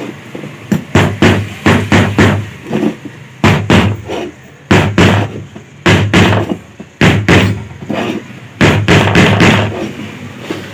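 Repeated sharp metal knocks in quick clusters of a few strikes as a new bearing is driven into its tight-fitting seat in a pedestal fan's motor.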